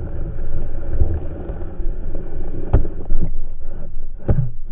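Low, rumbling water noise on a submerged camera's microphone, with two sharp knocks, the second about four seconds in.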